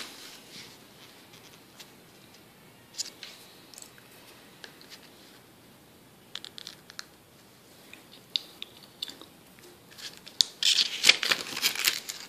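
Paper pages of a spiral-bound booklet being handled and rustled by hand, with scattered light ticks and taps. Near the end, a louder, longer rustle as a page is turned.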